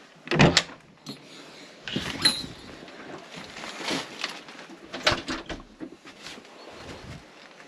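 A door latch clicks as its handle is pressed and the door is pushed open, followed by a few scattered knocks and steps.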